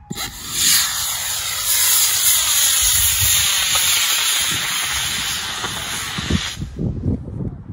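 Solid-fuel model rocket motor firing: a loud hissing rush that starts abruptly at liftoff, with a faint falling sweep running through it as the rocket climbs. It cuts off suddenly about six and a half seconds in, leaving wind rumble on the microphone.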